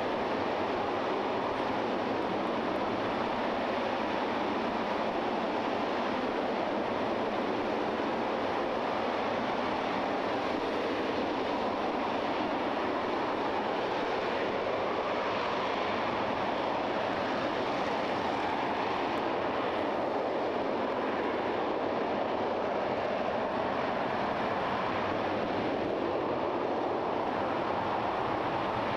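RS-25 liquid-hydrogen/liquid-oxygen rocket engine (the Space Shuttle main engine) firing at full burn during a static test fire: a steady, even roar that does not change.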